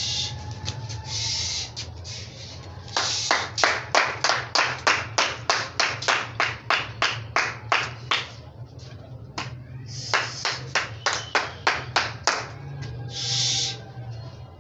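Rapid hand clapping, about five claps a second, in two long runs, used to drive a flock of pigeons up and keep them flying. A few short hissing sounds come between the runs.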